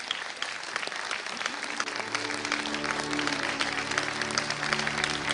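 Audience applauding, a dense patter of many hands, with background music of held low notes fading in about two seconds in.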